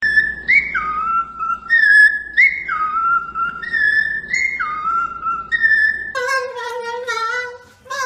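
Cockatiel whistling a short tune: the same phrase three times over, each a high note that slides down to a lower held note. About six seconds in it gives way to a different, lower voice with a wavering pitch.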